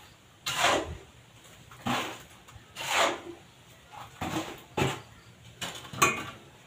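Repeated short scraping swishes, roughly one a second, from working wet concrete mix with a hand tool while it is poured into the countertop formwork.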